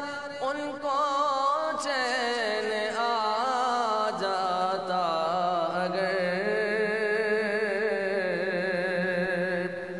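A man's voice singing an Urdu naat, drawing out long, wavering melodic phrases with ornamented turns in which no words can be made out.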